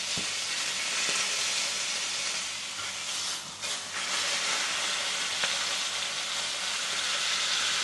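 Ribeye steak searing in hot beef tallow in a pan, its edge pressed to the pan: a steady loud sizzle that dips briefly about three and a half seconds in.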